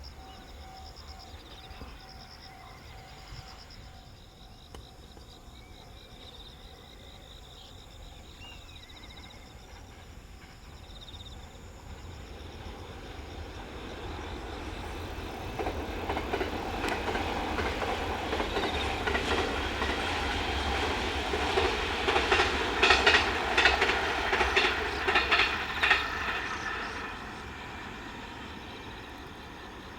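A train passing on the line, growing louder from about twelve seconds in. Wheels click rapidly over the rail joints at the height of the pass, and the sound drops away quickly near the end.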